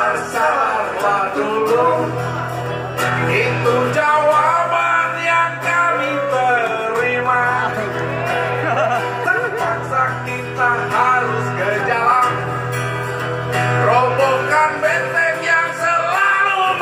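Men singing a song into microphones, backed by a live band with guitar and steady held low notes underneath.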